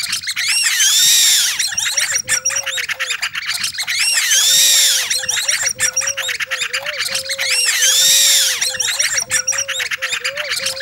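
Imitation bird calls made with hand-held bird calls and squeaky objects, layered on a loop station into an aviary-like cacophony: a cycle of rapid chattering clicks and high arching squeaks repeats every three and a half seconds or so. About two seconds in, a lower warbling whistle joins the loop.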